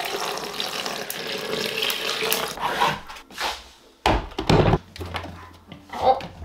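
Water running from a kitchen tap into a sink for about three seconds, then a heavy thud about four seconds in, followed by a few lighter knocks.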